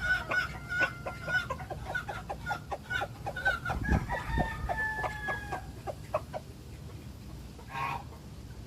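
Salmon Faverolle chickens clucking in quick, repeated calls, with one longer drawn-out call about four to five seconds in. The clucking thins out over the last couple of seconds.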